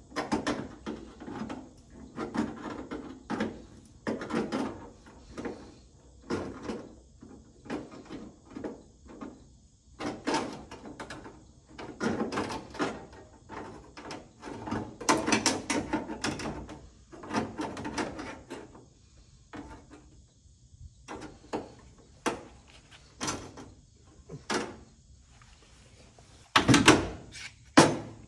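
Irregular metallic clanks, knocks and scrapes of sheet metal being handled and worked into a car's floor pan as a patch panel is fitted for welding. The loudest cluster of knocks comes near the end.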